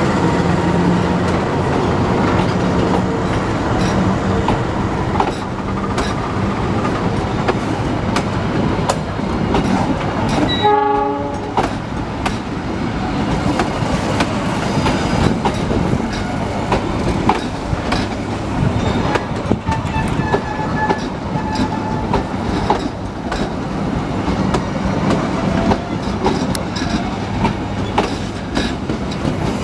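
Passenger train coaches rolling past close by, the wheels clicking steadily over the rail joints with a continuous rumble.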